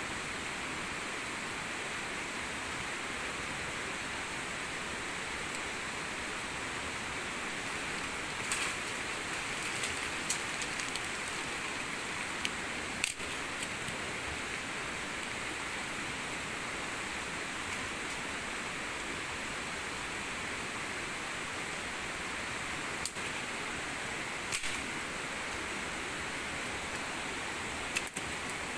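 Steady rushing water noise, with a few sharp clicks and snaps scattered through it.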